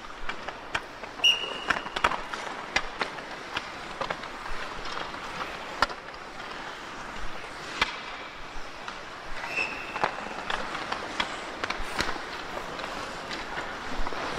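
Hockey players stickhandling pucks on a rink: irregular sharp clacks of pucks on stick blades over the steady scrape and hiss of skates on ice. Two short high-pitched chirps come about a second in and again near ten seconds.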